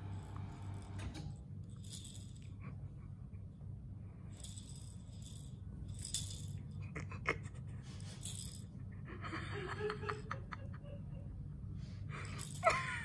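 A rattle inside a soft fabric toy ball jingles in short bursts as a husky puppy mouths, paws and rolls it, with a few sharp clicks among them. A short, high squeak comes near the end. A low, steady hum runs underneath.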